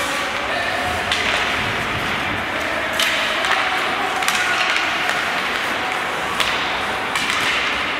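Ice hockey play: a steady scrape of skates on the ice, with about five sharp clacks of sticks and puck spread over the seconds.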